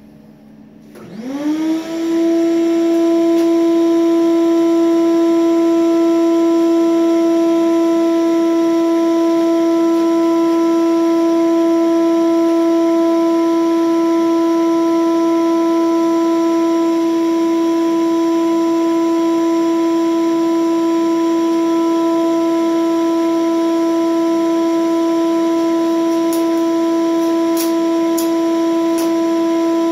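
Shop vacuum switched on: its motor spins up in about a second, then runs with a steady, loud whine, drawing air through a long hose as a welding fume extractor.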